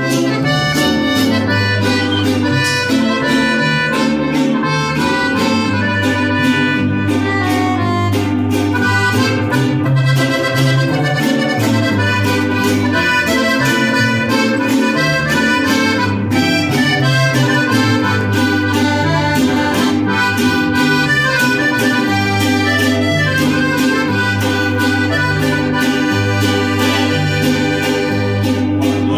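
Live norteño-style conjunto playing an instrumental introduction: a piano accordion carries the melody over a plucked upright bass line and a strummed guitar keeping a steady rhythm.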